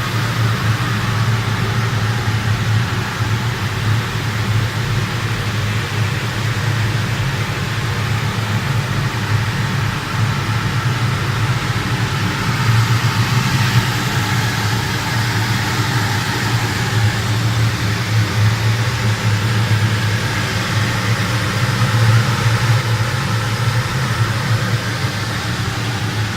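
Heavy fuel oil burner firing steadily on a steam boiler: a loud, even rush of combustion and fan noise over a strong low hum.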